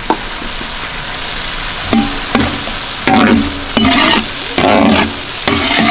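A metal spoon stirring and scraping chili sauce around a large aluminium wok, in about five separate strokes from about two seconds in, over a steady sizzle of the sauce frying in oil. One sharp clink of the spoon on the pan at the start.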